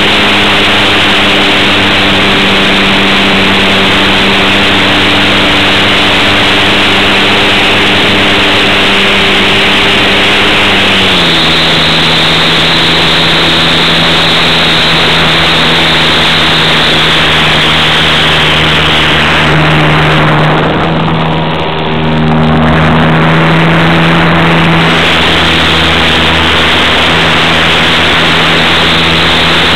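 Radio-controlled model airplane's motor and propeller running in flight, heard close up from on board over a steady rush of air. The drone drops in pitch about a third of the way in as the throttle is eased back. It changes again around two-thirds in, while the rush briefly thins.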